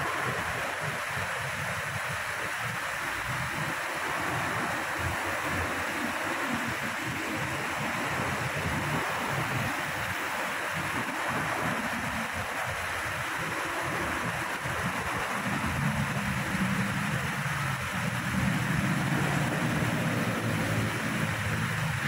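Water rushing steadily over a low concrete weir. An uneven low rumble underneath grows louder in the second half.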